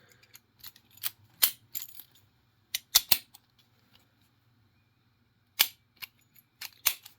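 Sharp metallic clicks and knocks from a large all-brass padlock being handled, about ten in irregular groups, over a faint steady hum.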